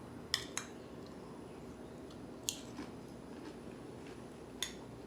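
Five short, sharp crunches spread over a few seconds: someone biting and chewing crisp suka puri.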